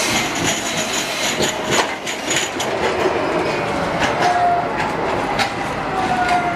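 Breda tram rolling past close by over track points, its wheels clicking and clacking over the rail joints and crossings. A thin whine slides down in pitch from about four seconds in.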